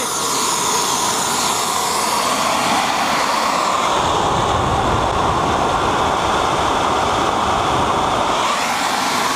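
Homemade turbojet engine running steadily at about 84,000 rpm, a loud, even rush of jet noise. A high whine is present at first and fades after about three seconds, and a deeper rumble grows in from about four seconds.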